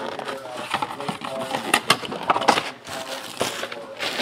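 Crinkling, crackling and tapping of trading-card packaging being handled: a quick, irregular run of sharp crackles and taps.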